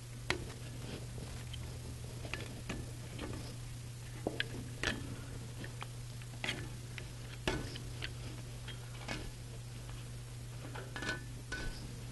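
Putty knife prying an old glued-on rubber tire off a bandsaw's metal wheel: irregular sharp clicks and taps of the steel blade against the wheel and the tire as it is worked loose.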